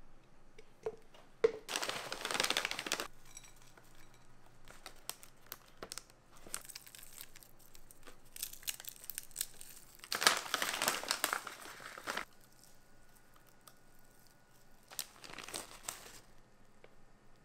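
Plastic food bags crinkling as granola clusters and shredded coconut are shaken out over a bowl, in three bursts of rustling about two, ten and fifteen seconds in, with small clicks and taps between them.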